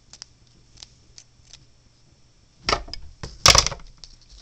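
Scissors cutting excess plastic off a DIY Rubik's cube piece: a few light clicks, then two louder snaps near the end, the second the loudest.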